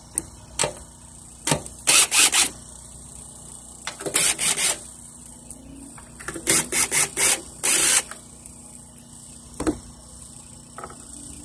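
DeWalt cordless drill running in short trigger bursts, three clusters a couple of seconds apart, backing out the 7 mm bolts that hold the generator's gas tank on. A few sharp clicks come between the bursts.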